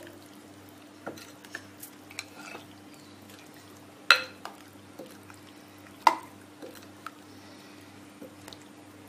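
A metal spoon stirring lemon pieces in thick sugar syrup in a glass bowl: wet stirring with light clinks of the spoon against the glass, two sharper clinks about four and six seconds in.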